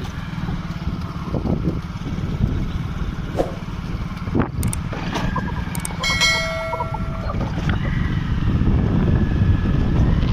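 Motorbike riding at low speed, its engine running under a steady rumble of wind on the microphone. About four and a half seconds in come a few sharp clicks, then a short ringing chime of several steady tones that fades after about a second and a half.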